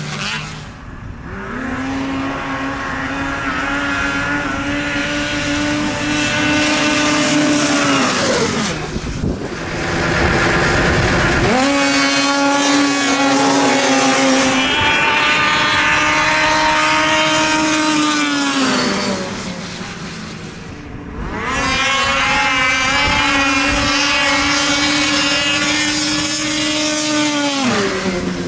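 Racing snowmobiles running at full throttle down a drag strip in three runs. Each run is a steady, high engine whine held for several seconds that slides down in pitch as the sleds go by and back off. This happens about a third of the way in, about two-thirds in, and again at the end.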